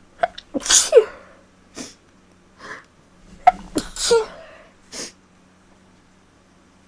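A woman sneezes twice, about a second in and again about four seconds in. Each sneeze comes after quick catching breaths and has a voiced cry that drops in pitch. Short sniffs and breaths fall between and after the sneezes.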